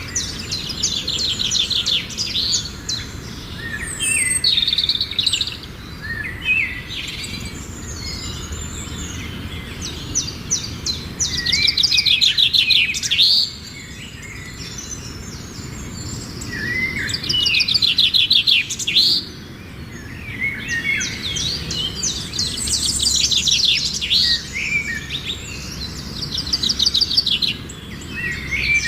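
Songbirds singing outdoors: short, rapid trilled phrases repeated every few seconds, some loud and close, over a steady low background noise.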